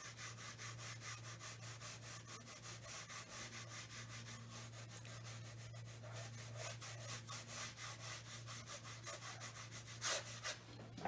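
Flat watercolor brush dragged across textured watercolor paper in quick repeated strokes, about four a second, faint and rubbing, laying in broad cast shadows; one louder stroke near the end.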